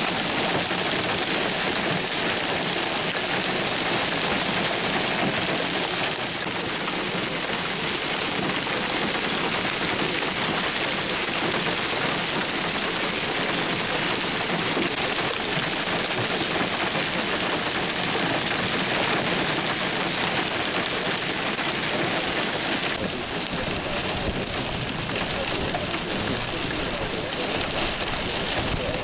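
Hail and heavy rain pelting an asphalt road: a loud, steady hiss of many small, rapid impacts. About two-thirds of the way in it turns into a duller rush with more low rumble.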